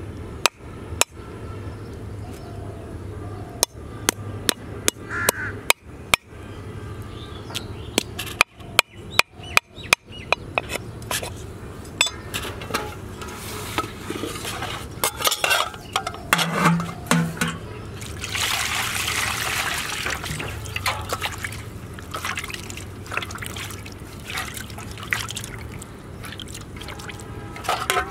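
A run of sharp, separate knocks through about the first ten seconds, then water pouring and trickling, loudest about two-thirds of the way in.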